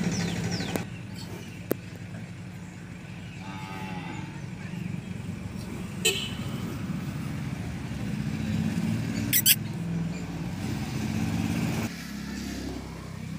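Steady low rumble of a motor vehicle running, with a cow's short low call about four seconds in and a few sharp clicks.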